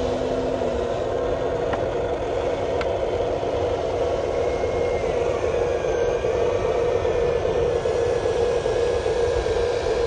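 Electric motors and plastic gearboxes of radio-controlled construction models running with a steady whir, a few faint tones shifting slightly in pitch.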